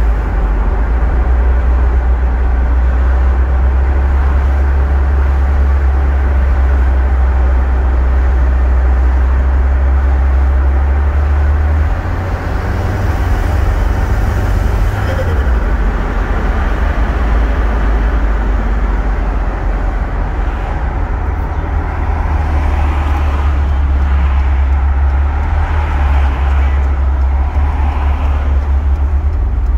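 Cabin drone of a Volvo 940 Turbo on the move: a steady low engine and road noise that eases for a few seconds about twelve seconds in, then picks back up.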